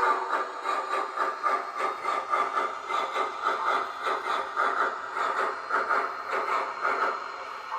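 Steam chuffing from the sound system of an MTH HO-scale Triplex model locomotive: an even rhythm of about three chuffs a second that dies away near the end.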